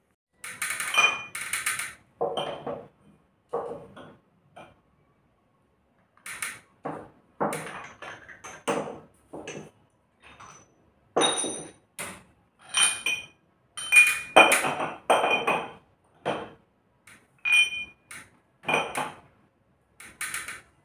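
Glassware and crockery being set on a cabinet shelf: irregular clusters of short clinks and knocks, some with a thin ringing ping.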